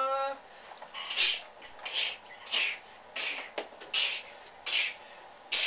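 Dry-erase marker writing on a whiteboard: a string of short, scratchy squeaks, roughly one every two-thirds of a second, as letters are stroked out. A held pitched note breaks off right at the start.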